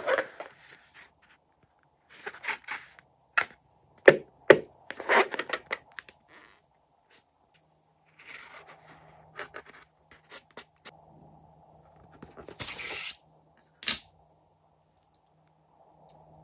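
Slime-filled rubber balloon being handled and opened: scattered rubbing, squeaking and clicking of the rubber, a louder short tearing sound about 13 seconds in, then a single sharp click.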